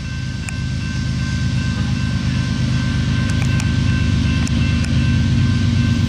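Diesel engine of an approaching Union Pacific GE ES44AC locomotive, a low rumble growing steadily louder. Steady high ringing tones from the grade-crossing bells run over it.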